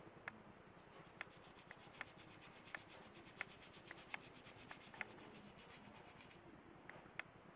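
A small brush scrubbing a part of an old service fuse connection block with rapid back-and-forth strokes. The scrubbing stops about six seconds in. Scattered light clicks run through it.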